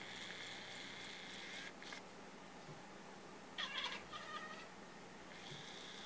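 Domestic cat making its bird-like chirping noise at the door, a short burst of rapid chirps about three and a half seconds in. A steady high-pitched tone sounds at the start and again near the end.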